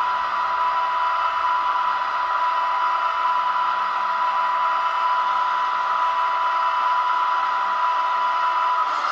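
Simulated air compressor of an ÖBB 4020 electric multiple unit, played by an H0 model's ESU LokSound 5 sound decoder through its small loudspeaker: a steady hiss with a high, even hum running down while the train stands. The hum stops near the end.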